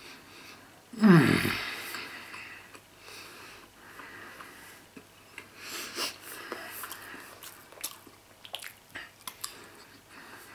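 A man chewing a mouthful of Emmentaler cheese: about a second in, one short, loud throaty vocal sound that trails off into a breathy exhale, then small chewing clicks and mouth noises.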